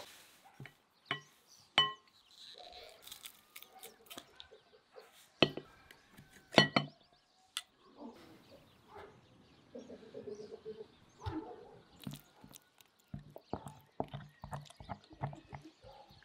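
Metal clinks and knocks from a hand garlic press being worked, two of them with a short ring. Near the end comes a run of quick soft knocks as a wooden spoon stirs a thick sauce in a glass bowl.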